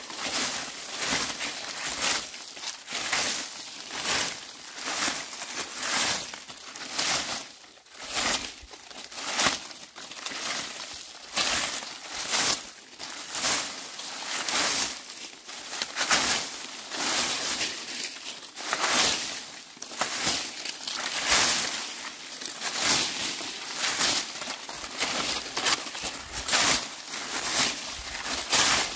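Broom sweeping dry leaves: a steady run of rustling, scraping strokes, about one or two a second.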